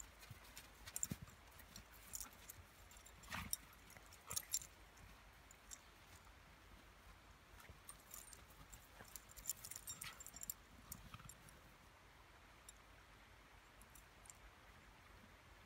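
Faint scuffling and crunching of two dogs, a golden retriever and a Groenendael, play-wrestling in snow: scattered short crunches and scuffs of paws in the snow, with clusters in the first few seconds and again past the middle.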